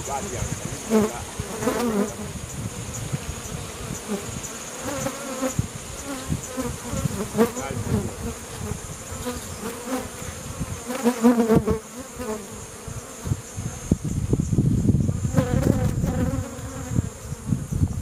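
Honeybees buzzing around a traditional basket hive as it is worked for harvest, with single bees passing close by as loud buzzes that rise and fall every few seconds. A low rumble joins in about two-thirds of the way through.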